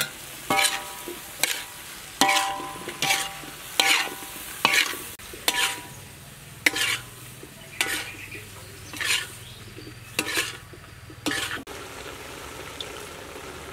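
Stir-frying beef and vegetables in a pan: a spatula scrapes and knocks against the pan about once a second, some strokes briefly ringing, over a steady sizzle. The strokes thin out near the end, leaving the sizzle.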